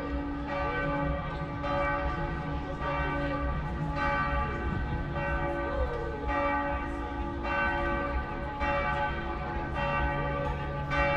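Church bells of Antwerp's Cathedral of Our Lady pealing, a new bell stroke about every second with the tones ringing on between strokes.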